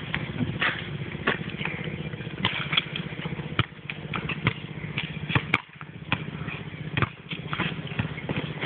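Basketballs bouncing on an outdoor court, sharp irregular knocks, over a steady low engine-like hum.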